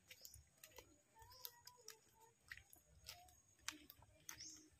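Near silence, with faint, irregular small clicks and rustles scattered throughout.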